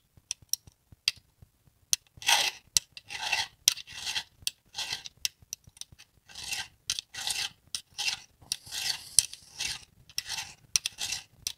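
Flat file worked by hand across a saw chain's raker (depth gauge) through a raker gauge, taking down a raker that sticks up just a little above the gauge. After a few light clicks, a steady run of rasping strokes begins about two seconds in, roughly two a second.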